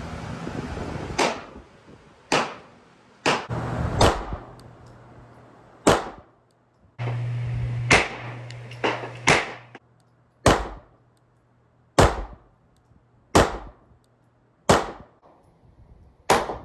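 Pistol shots from a 9mm Sig Sauer M18-style pistol, fired one at a time in slow succession: about a dozen shots, roughly one every second to second and a half, each with a short echoing tail.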